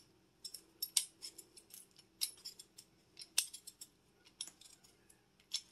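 Hand vegetable peeler scraping the skin off a russet potato in short, irregular strokes, a few of them sharp clicks.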